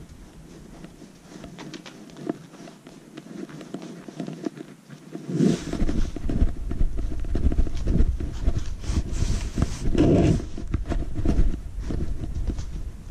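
Cat-teaser play on tatami: the wand's tip scrapes and taps across the straw mat, with the soft thuds and pattering of a kitten pouncing. From about halfway, a steady low rumble of handling noise from the moving camera comes in, with denser, louder taps and scuffs.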